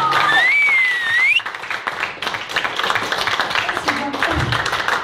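A song with keyboard accompaniment ends on a held note, a high rising whistle follows, and then a small group of people claps and applauds, with a brief voice near the end.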